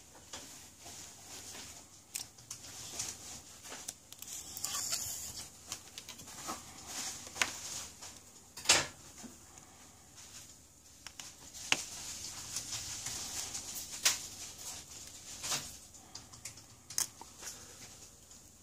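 Scattered light clicks and taps of small repair tools on a smartphone's opened frame and metal mainboard shield, with a few sharper clicks spread through.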